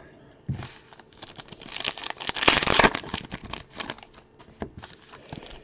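Trading cards and their packaging being handled: crinkling and rustling with many small clicks, starting about half a second in and loudest in the middle.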